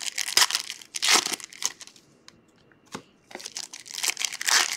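Foil trading-card pack wrapper crinkling and tearing as gloved hands rip it open. The rustling comes in two bouts with a short pause and a click or two between them.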